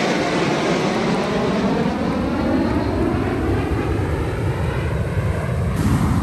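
Fighter jets' engine roar just after a low flyover, the pitch falling and the roar slowly fading as the jets move away. Near the end it gives way to wind buffeting the microphone.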